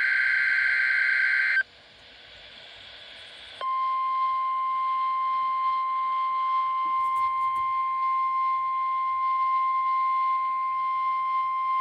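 NOAA Weather Radio warning signals during a test. The end of an EAS/SAME digital header burst, a harsh data screech, stops about a second and a half in. After two seconds of faint static comes the 1050 Hz warning alarm tone, one steady high tone held to the end.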